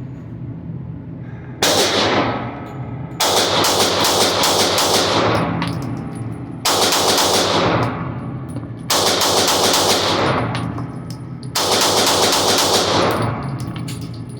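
9mm PSA Dagger Full Size S pistol fired in five strings of rapid shots, each string a second or two long. The strings start about one and a half, three, six and a half, nine and eleven and a half seconds in.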